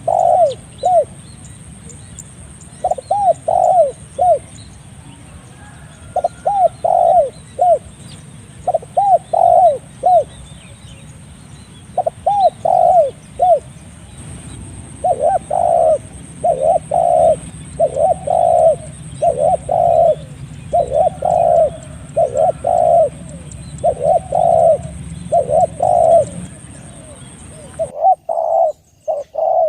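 Spotted dove (tekukur) cooing over and over, in phrases of three or four notes every couple of seconds that come closer together from about halfway. A steady background hiss and rumble cuts out abruptly near the end while the cooing goes on.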